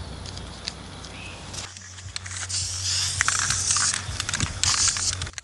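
Aerosol spray-paint can hissing in two spurts: the first starts about two seconds in and lasts over a second, the second is shorter and comes near the end. Before it there are only a few light handling clicks.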